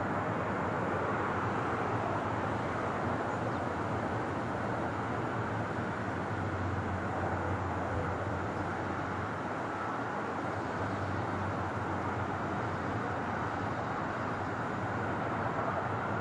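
Airbus A330 jet engines, a steady even roar that neither builds nor fades.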